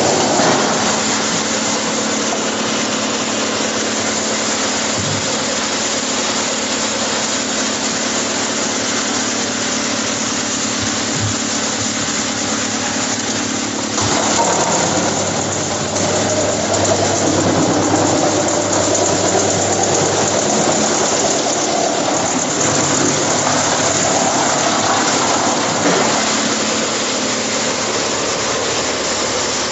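Wood chipper running with a steady mechanical hum; about halfway through the sound changes abruptly and becomes more uneven and wavering.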